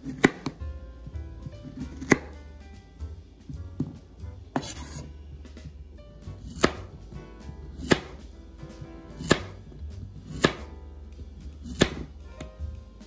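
Kitchen knife slicing through a zucchini into rounds, each cut ending in a sharp knock on a wooden cutting board, about every one to two seconds.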